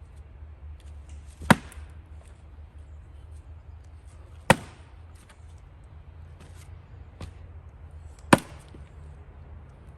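An axe striking firewood three times while hand-splitting: three sharp chops a few seconds apart, with a few faint knocks between them.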